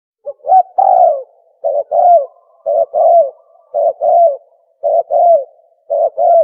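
Tukmo dove call played as a hunting lure: a two-part coo, a short note then a longer one that bends downward. It starts about a third of a second in and repeats steadily about once a second.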